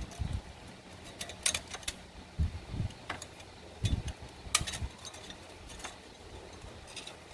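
Irregular light clicks and a few dull low knocks.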